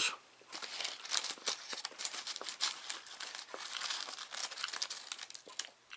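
Paper fast-food packaging crinkling and rustling as it is handled, a dense run of irregular crackles from about half a second in until just before the end.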